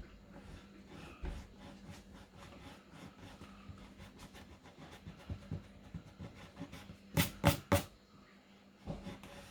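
Soft eraser rubbed on paper: faint scratchy rubbing and handling noises, with three louder quick strokes close together about seven seconds in.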